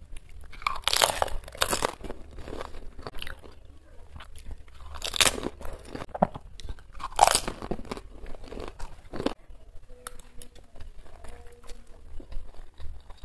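Close-up eating sounds: crisp fuchka (panipuri) shells crunching between the teeth in about four loud bites, with chewing in between. The eating grows quieter after about ten seconds.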